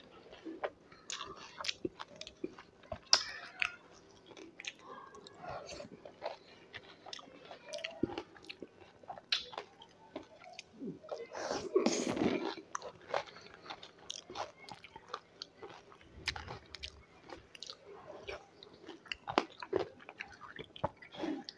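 A person biting and chewing dahi golgappa (crisp hollow puris filled with yogurt), close to a clip-on microphone. Irregular crunches and mouth clicks throughout, the loudest about halfway through.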